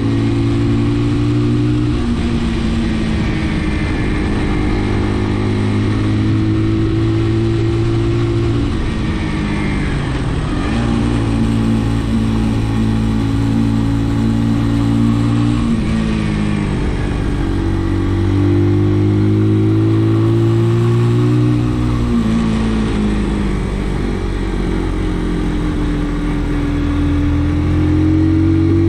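Brixton BX5 motorcycle engine running while riding. Its note holds steady for a few seconds at a time, then drops and climbs again several times.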